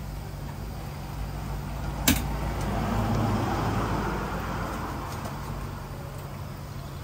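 Dough balls deep-frying in a wok of hot oil, the oil sizzling steadily over a low hum. A sharp metallic click comes about two seconds in, likely the wire strainer striking the wok. A passing vehicle swells and fades in the middle.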